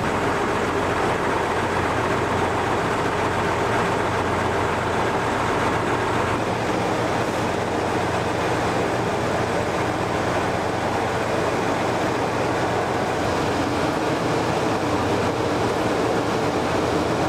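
Trackmobile rail car movers' diesel engines running steadily as they push the rocket's launch platform, whose steel wheels roll slowly along the rails, giving a continuous mechanical hum.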